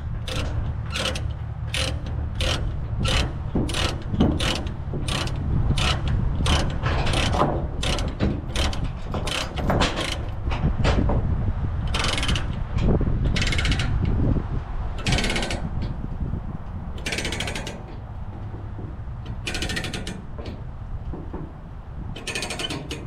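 Ratchet chain binder being cranked to tighten a tie-down chain on a trailer, its pawl clicking about twice a second, then slower, longer ratchet strokes in the second half. A low steady rumble runs underneath.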